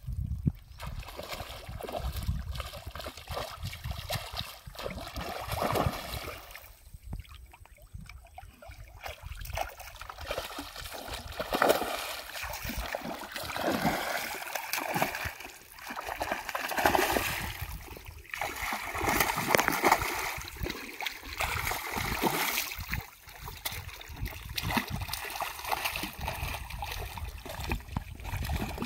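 A hooked fish thrashing and splashing at the water's surface as it is played on a fishing rod, with irregular bursts of splashing and sloshing water that swell and fade.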